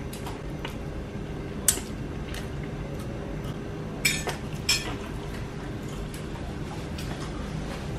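Cutlery clinking a few times: once about two seconds in and twice in quick succession around four to five seconds, over a steady low hum.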